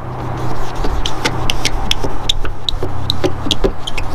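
A cloth pad rubbing Meguiar's PlastX polish into a plastic headlight lens by hand, in quick back-and-forth strokes heard as short scratchy swipes about three a second, starting about a second in.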